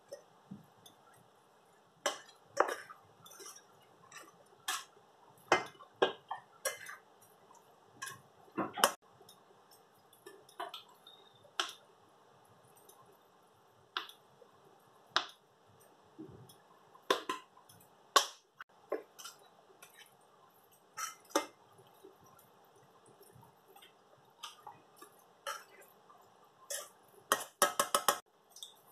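A cooking spoon stirring onions and tomatoes in a stainless steel pot, knocking and scraping against the pot in irregular clacks over a faint steady hiss. Near the end a quick run of taps.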